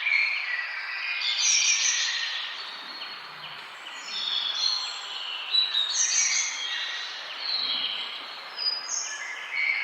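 Several birds chirping and singing together in a forest, short overlapping calls and trills over a steady background hiss.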